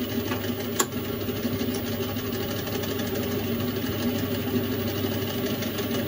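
Small metal lathe running, its spindle and gear drive humming steadily as the chuck spins, with a single click about a second in.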